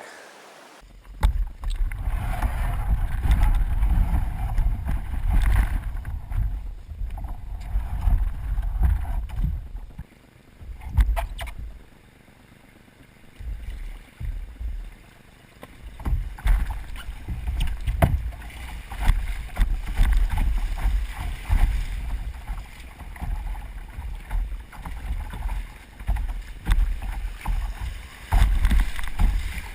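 Kayak being paddled on a river: paddle strokes and splashes in the water over a strong, uneven low rumble on the microphone, easing off for a few seconds near the middle.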